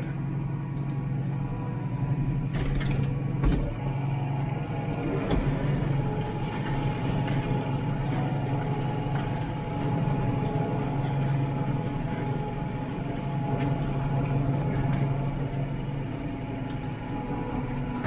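New Holland T7 tractor engine running steadily under load while pulling a five-furrow plough, with a couple of sharp clicks about three seconds in.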